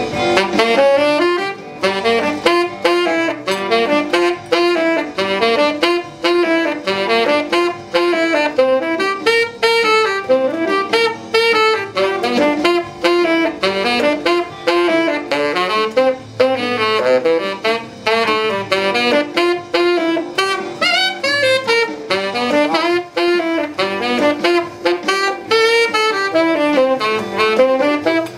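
Tenor saxophone playing an instrumental solo of quick runs of notes, with vibrato on the held ones.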